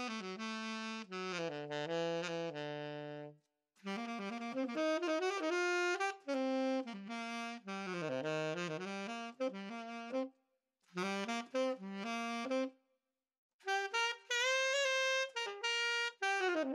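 Tenor saxophone played solo in melodic phrases, broken by three short pauses. A professional tenor is played at first, then after a pause a student-model tenor.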